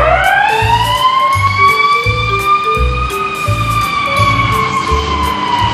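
Ambulance siren in wail mode: one long tone that climbs to a peak about three seconds in and then slowly falls. Background music with a steady beat plays under it.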